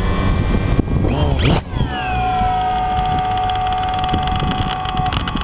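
Small quadcopter drone's electric motors whining, picked up on the drone's own camera with prop wash rumbling on the microphone. The whine rises to a brief loud burst of noise about a second and a half in, then falls and holds steady.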